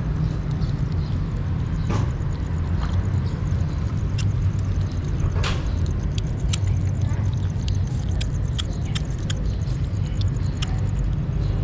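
Kittens chewing and lapping wet food from a plastic tub: many quick small wet clicks, thickest in the second half. A steady low rumble runs underneath.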